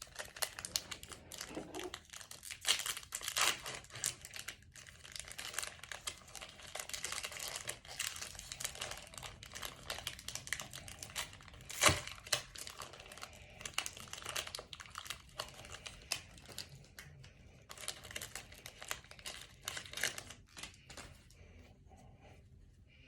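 Foil trading card pack being torn open and crinkled, with irregular crackling and rustling of the wrapper and cards throughout and one sharp crackle about halfway.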